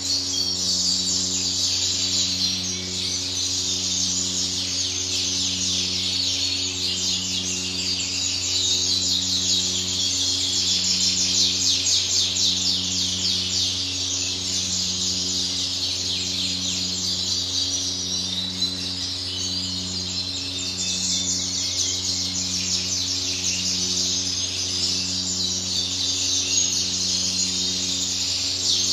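Many caged canaries twittering and singing together in a continuous chorus, over a low steady hum that pulses about once a second.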